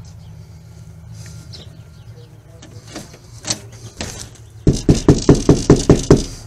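Rapid loud pounding on a house door, about ten knocks at roughly five a second, starting about two-thirds of the way in. Before it come a few light clicks.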